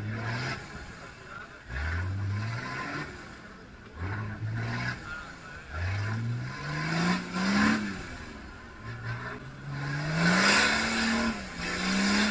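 A 4x4 SUV's engine revved in repeated bursts, each a rising note, the longest two near the end, as it churns through a deep mud pool. Its spinning wheels throw muddy water, and the splashing is loudest near the end.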